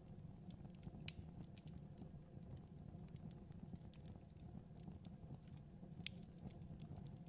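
Wood fire burning in a fireplace, crackling: irregular small pops and snaps over a low steady rumble, with sharper pops about a second in and again near six seconds.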